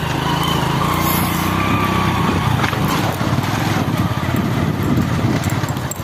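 Small motorcycle's engine running steadily as the bike rides slowly over a rough dirt track.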